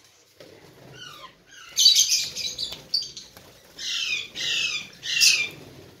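Lovebirds squawking: a series of shrill, downward-sweeping calls, faint at first, then a run of five or so loud ones from about two seconds in until shortly before the end.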